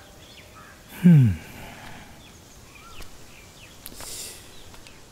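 A man lets out a short sigh, falling in pitch, about a second in, over quiet ambience with a few faint bird chirps.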